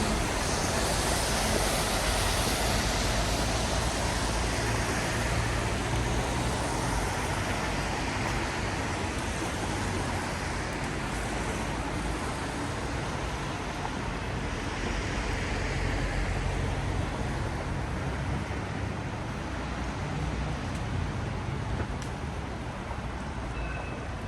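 City traffic passing on a rain-wet street: tyres hiss on the wet road and engines hum, with the noise swelling as vehicles pass, over steady rain.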